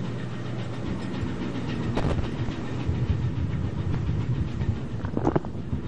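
Ship's engine running with a steady low drone under a rushing noise, with a sharp knock about two seconds in and a short clatter near the end.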